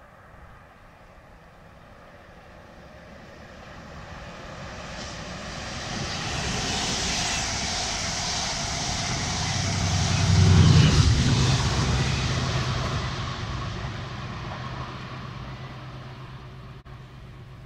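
Class 68 diesel-hauled passenger train passing: wheel and rail noise builds over several seconds and peaks about eleven seconds in with the locomotive's deep engine drone, then fades slowly, the drone lingering as the train runs away.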